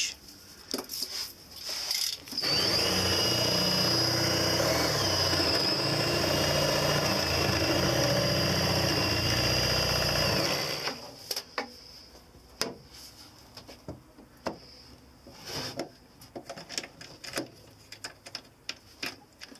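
Cordless drill boring a hole into wood, running steadily for about eight seconds from about two seconds in, with a high whine. After it stops, a scattering of short clicks and knocks.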